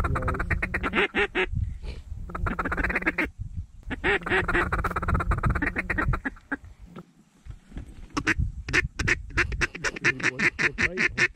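Mallard-style quacking: long drawn-out runs of quacks, then a fast run of short clucks, about five a second, from about eight seconds in.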